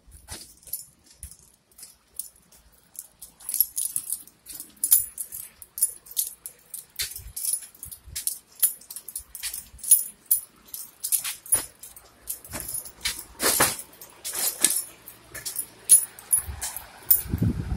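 Light metal clinking and jingling: many quick, irregular clicks, busier after the first few seconds, with a low rumble near the end.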